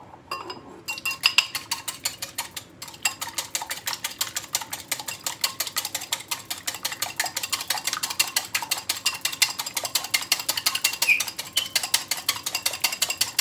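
An egg being beaten with a skimmer in a small ceramic bowl: rapid, even clinking strokes of the spoon against the bowl, starting about a second in.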